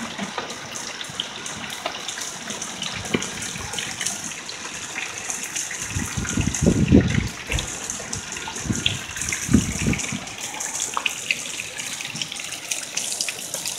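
Hail and heavy rain falling on a lawn and bare ground: a steady hiss dotted with many small sharp ticks of hailstones landing. About six seconds in, a low rumble swells twice over the next four seconds, the loudest sound here.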